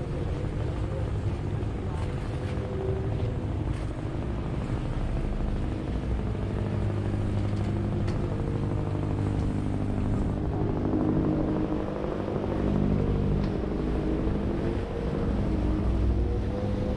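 Boat engine running steadily, a low drone with a slightly wavering pitch.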